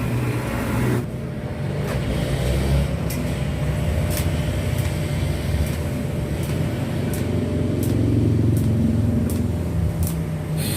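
A vehicle engine running steadily with a low rumble, with light sharp clicks about once a second.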